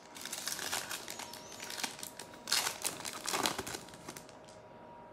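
Trading cards being handled and flipped through: a run of short papery swishes and flicks, with two louder swishes around the middle, then it goes quieter.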